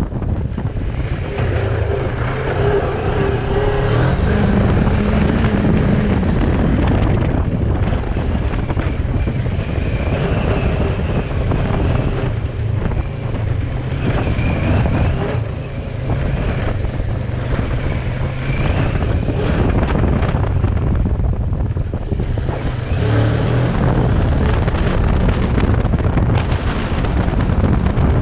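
Kawasaki Versys 650's parallel-twin engine running under way, its pitch rising and falling with the throttle, under heavy wind buffeting on the microphone.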